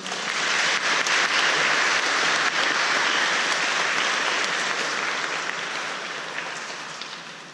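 Audience applauding: the clapping starts at once, holds loudest for the first few seconds, then gradually dies away near the end.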